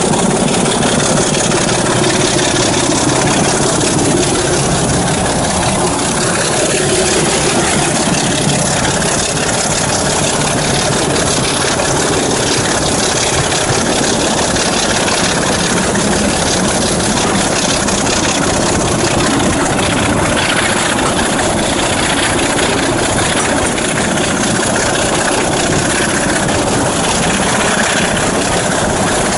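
Steady running noise of a moving diesel-hauled train heard from an open carriage window: the Class 26 locomotive's Sulzer six-cylinder diesel engine working ahead, mixed with wind rush past the microphone and wheels on the rails.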